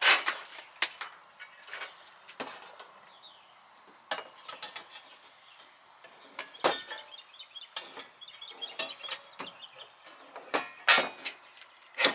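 Scattered knocks and clicks of cold air intake parts being handled and pushed into place during the install, with a few louder knocks near the start, about halfway through, and near the end.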